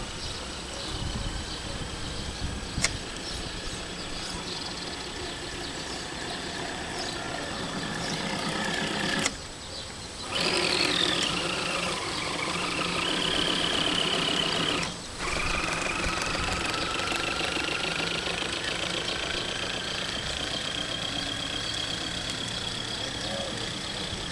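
Small electric motor of a Graupner RC boat's outboard whining as it drives the propeller through a strimmer-line flex drive, its pitch rising and falling with the throttle and breaking off briefly twice. The boat is slow, which the owner puts down to a failing motor rather than the flex drive.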